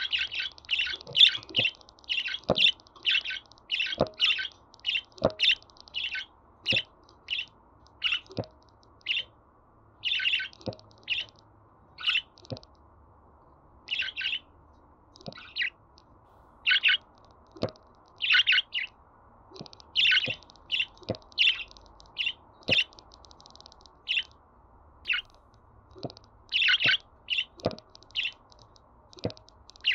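Budgerigar chirping: many short, sharp, high chirps in quick, irregular runs, with brief pauses between runs.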